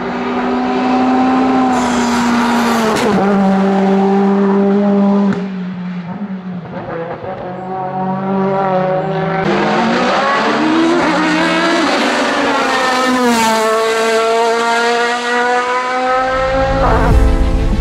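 Race car engine at high revs accelerating up a hillclimb course, the pitch dropping at each upshift and climbing again as it pulls through the gears. Near the end a deep low rumble comes in as the engine sound fades.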